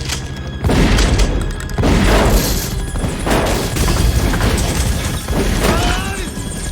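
Film sound mix of heavy crashes and deep booms, hitting again about once a second, over an orchestral-style music score.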